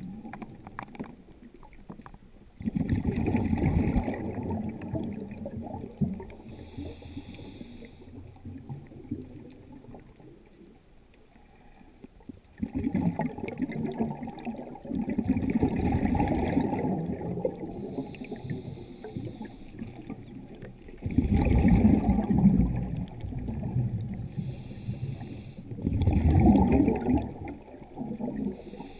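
Scuba diver's exhaled bubbles gurgling past an underwater camera in four long bursts a few seconds apart, with quieter stretches between breaths.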